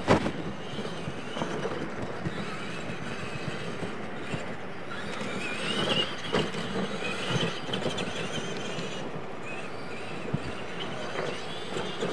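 Electric R/C monster trucks of the Tamiya Clod Buster type running on a dirt track, their motors whining and rising and falling in pitch as they are throttled. Sharp thumps come as the trucks hit and land off the ramps, the loudest at the very start and another about six seconds in.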